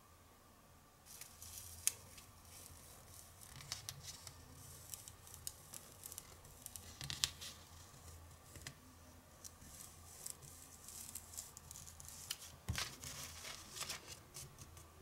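Soft paper rustling and crinkling as a small folded paper leaflet is handled and turned over, with scattered crackles and a few sharper snaps, the clearest about two, seven and thirteen seconds in.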